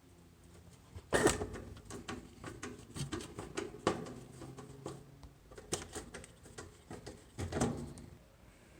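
Hand-tool work on a washing machine's water inlet valve: irregular clicks, knocks and scraping of a screwdriver and metal parts being handled, with louder knocks about a second in, about four seconds in and near the end.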